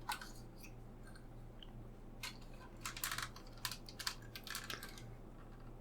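Faint, irregular small clicks and taps of a 1:18-scale diecast model car being handled, clustered in the middle of the stretch, over a low steady hum.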